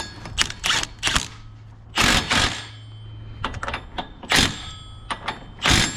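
Impact wrench fired in a series of short rattling bursts, spinning an axle nut onto a UTV's rebuilt CV axle, with one longer burst about two seconds in.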